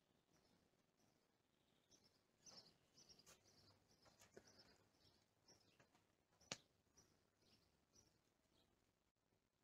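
Near silence, with faint bird chirps in the background and one sharp click about six and a half seconds in.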